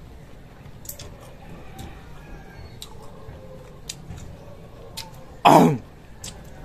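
Close-up chewing of crunchy unripe green mango, with many short, scattered clicks and crunches. About five and a half seconds in comes a short, loud vocal exclamation that falls in pitch.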